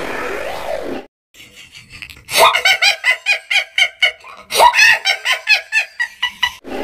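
Cartoon girl's high-pitched laughter in two bouts of quick, evenly spaced 'ha-ha' pulses, starting about two seconds in. Background music cuts off about a second in, just before the laughing.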